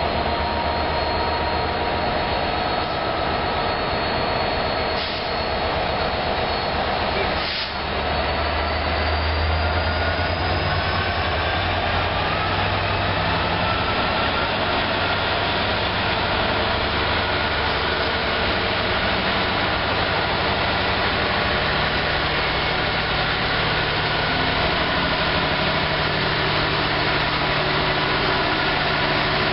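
Two-stroke V12 EMD diesel engine of a Class 66 freight locomotive running under power as the train passes, a loud steady throb. Its pitch climbs for a few seconds about a third of the way in.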